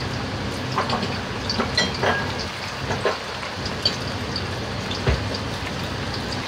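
Sauce bubbling and sizzling in a wok around slices of eggplant and stuffed bitter gourd, a steady sizzle dotted with small irregular pops.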